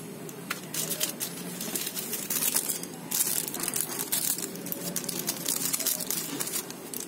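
Clear plastic packaging bag crinkling in irregular bursts as a handheld radio antenna is pulled out of it, loudest around the middle.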